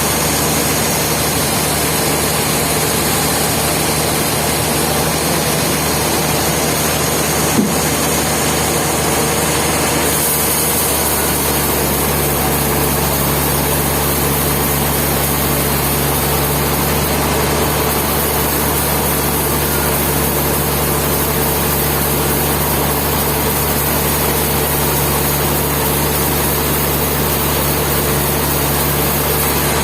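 Sawmill machinery running with a steady, dense mechanical drone. The low hum grows heavier about ten seconds in, and a single click sounds near the eight-second mark.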